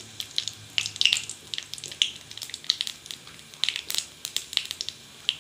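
Dried red chillies and nigella seeds spluttering in hot mustard oil in a kadai, an irregular run of sharp pops and crackles.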